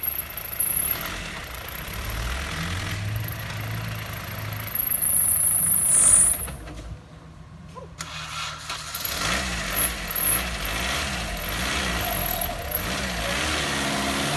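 Off-road buggy engine running, then dying away about six seconds in. After a short lull it is started again about two seconds later and runs with the revs rising and falling.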